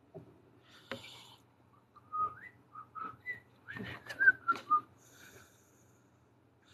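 A person whistling a few short, quick notes, some sliding upward, with a sharp tap about a second in.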